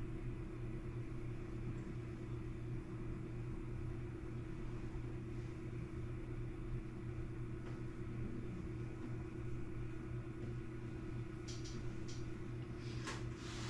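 Steady low mechanical hum, with a few faint clicks near the end.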